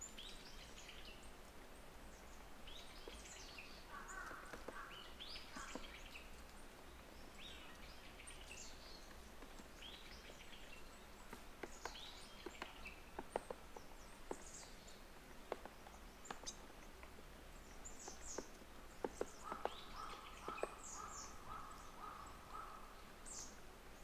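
Eurasian nuthatch calling with short, high notes repeated throughout, with a run of sharp taps in the middle, as from a bill pecking at bark.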